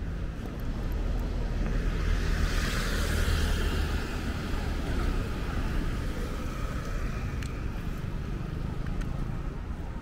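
Outdoor ambience: a steady low rumble, with a swell of rushing noise that builds about two seconds in and fades a few seconds later.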